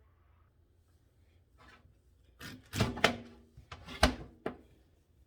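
Kitchen knocks and clunks, perhaps a knife and pineapple pieces against a board or pot, a cluster of five or six sharp knocks starting about two seconds in, some ringing briefly.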